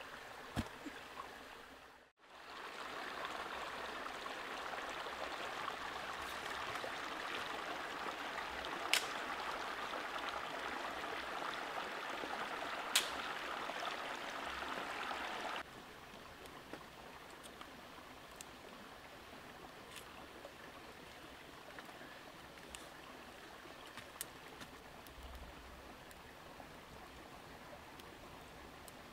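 Steady rushing of a rocky forest stream, with two sharp snaps partway through. About halfway it drops suddenly to a quieter steady hiss with scattered faint crackles of a small wood fire.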